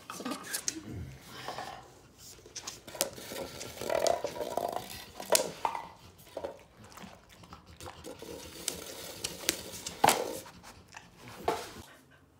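A dog nosing and knocking disposable cups around on a hard floor while sniffing for a hidden treat. Scattered light knocks and clatters, the sharpest about five and ten seconds in.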